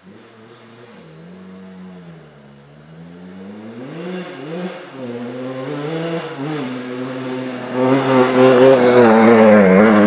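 Kawasaki KX85 two-stroke dirt bike engine revving, its pitch rising and falling again and again with the throttle. It grows louder throughout and is loudest over the last two seconds.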